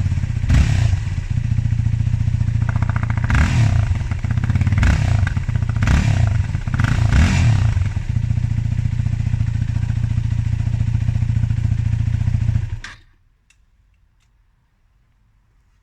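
Yamaha WR250X's 250 cc single-cylinder four-stroke engine through its stock exhaust, idling and blipped in about five quick revs, then idling steadily. The engine cuts off about thirteen seconds in, leaving near silence with a few faint ticks.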